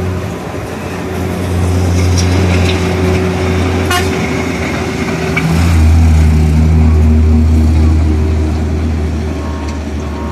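Heavy water tanker truck's engine running as it drives close past, a steady low hum that grows loudest about six seconds in and then fades. A single sharp click about four seconds in.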